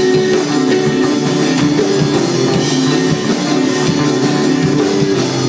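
A ska band playing live, with electric guitars and a drum kit driving a steady beat.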